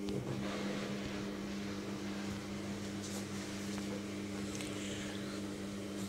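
Logik front-loading washing machine running its intermediate spin: a steady motor hum over the churning of the turning drum.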